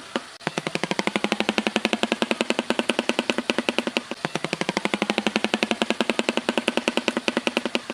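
An animal's rapid, pulsing trill, about fifteen pulses a second, starting about half a second in and holding steady.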